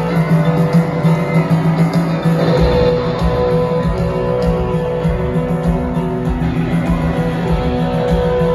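Live rock band music recorded from within an arena crowd: guitar and piano over sustained chords. A low, pulsing bass beat comes in about two and a half seconds in.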